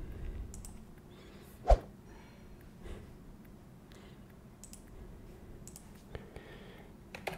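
A few computer mouse clicks at a desk, one louder click with a low thud a little under two seconds in and fainter clicks scattered after it.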